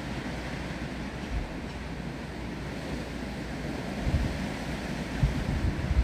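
Steady wind and rain through trees. From about four seconds in, gusts start to buffet the microphone with low rumbles.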